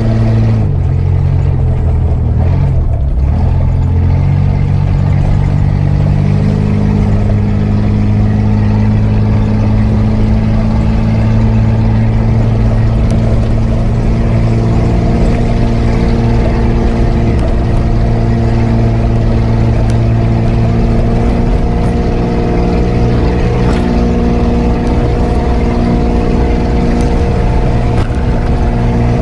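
Mitsubishi Pajero's 3-litre V6 petrol engine running as the 4x4 drives along a rutted dirt track. The engine note shifts and dips in the first few seconds, then settles into a steady drone with small rises in revs.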